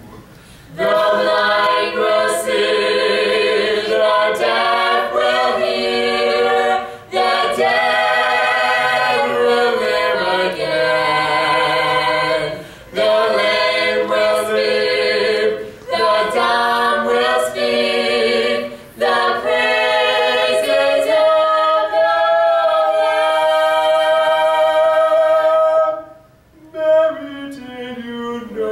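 A vocal trio, a man and two women, singing in harmony through microphones, unaccompanied, in phrases of a few seconds with short breath breaks between them.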